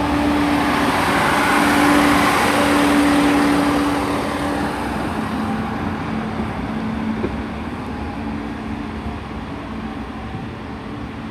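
Two coupled Class 158 diesel multiple units pulling into the platform and slowing. The running noise is loudest in the first few seconds and then fades. Under it a steady hum drops to a slightly lower note about five seconds in.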